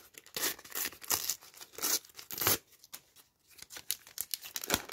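A Topps sticker packet being torn open by hand: several short rips of the wrapper with crinkling, then quieter rustling and small clicks as the stack of stickers is slid out.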